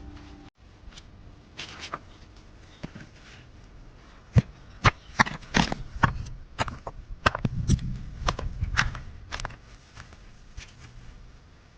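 Irregular sharp clicks and knocks, a dozen or so, with a few dull thumps among them, thickest through the middle seconds, as of sticks or wood being handled.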